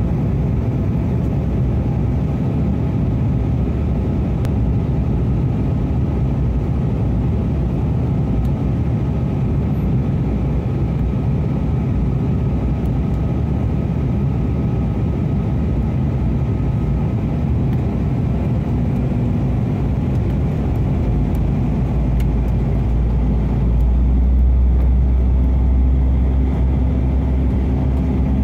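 Cabin noise inside a jet airliner during descent: a steady, loud low rumble of engines and airflow. About two-thirds of the way through the rumble grows deeper and louder, and a steady low hum joins it.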